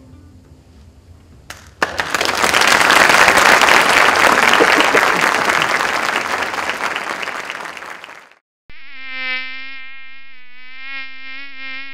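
Audience applauding, starting about two seconds in and dying away after about six seconds. Then a buzzing tone with a wavering pitch starts, a mosquito-buzz sound effect for the closing credits.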